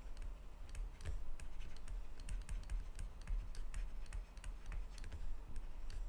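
Stylus tapping and scratching on a tablet screen during handwriting: a quick, irregular run of small clicks with soft low knocks.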